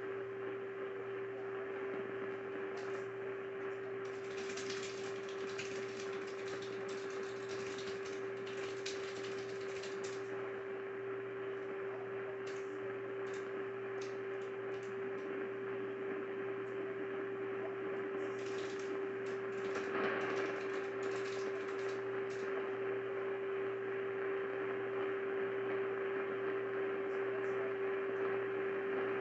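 AM radio receiver on WWL 870 during dead air: steady hiss with a constant low whistling hum, broken by bursts of crackling static a few seconds in and again about two-thirds of the way through. The crackles are the kind of static crashes that lightning from nearby thunderstorms puts on the AM band.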